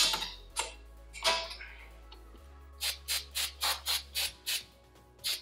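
Aerosol spray can sprayed onto a drum brake backing plate: two longer hisses in the first two seconds, then runs of short quick bursts, about four a second. Background music plays underneath.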